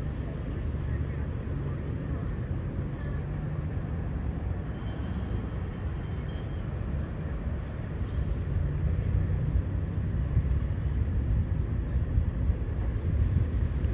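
Low, steady rumble of road traffic heard from a car window, growing louder about eight seconds in, with a few faint high tones near the middle.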